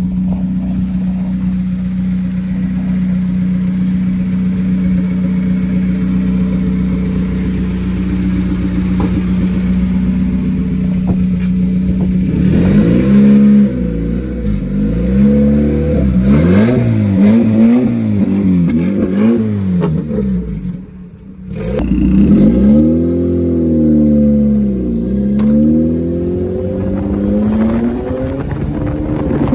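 Turbocharged mid-mounted Honda F20B four-cylinder in a CRX idling steadily, then revved up and down over and over from about twelve seconds in. The sound briefly drops away about two-thirds of the way through, then more revving before it settles back toward idle near the end.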